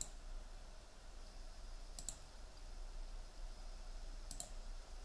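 Computer mouse clicking: three quick press-and-release clicks, one about every two seconds, over a faint low hum.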